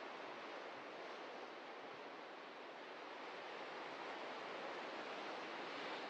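Ocean surf breaking on a rocky shoreline: a steady hiss and wash of waves that swells a little near the end as a wave breaks over the rocks.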